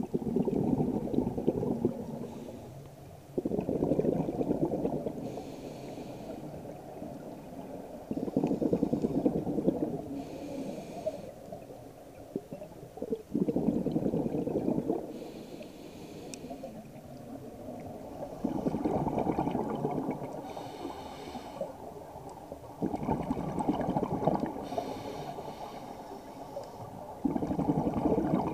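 Scuba breathing through a regulator underwater: exhaled bubbles gurgling out in a burst of one to two seconds about every four to five seconds, with a faint hiss of inhaling between bursts.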